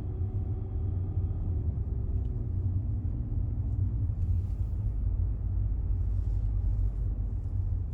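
Steady low rumble of a car cabin while driving: road and engine noise, with a faint hum in the first half.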